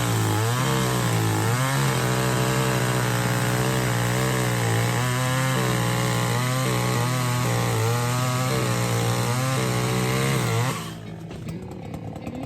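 Echo CS-400 two-stroke chainsaw at full throttle cutting into a hard stump, its engine pitch wavering as the chain bites and loads it. About eleven seconds in the throttle is released and the saw drops to a quieter idle.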